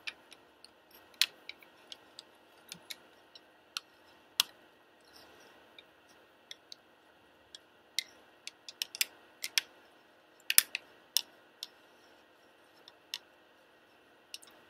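Irregular light clicks and ticks, scattered a second or two apart and bunched in a small cluster after the middle, over a faint steady hiss.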